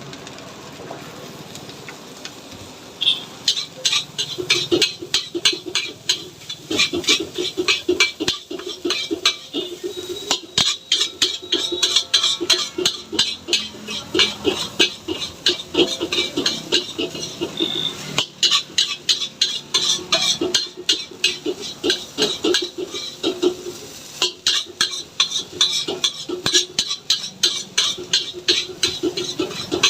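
Metal spatula striking and scraping a wok in rapid, repeated strokes, several a second, as egg fried rice is tossed and mixed, starting about three seconds in over a steady hiss.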